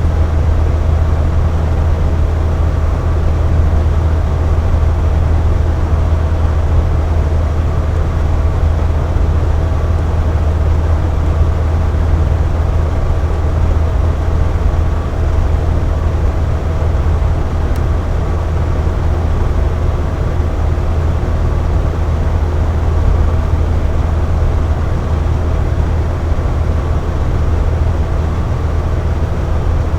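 Box fan running steadily: an even rush of air over a strong low hum, with faint steady tones above it.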